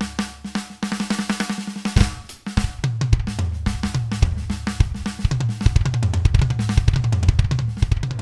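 Muzzio electronic drum kit played in a fast, busy groove: snare, bass drum, tom and cymbal hits, over low stepped notes like a bass line from a backing track.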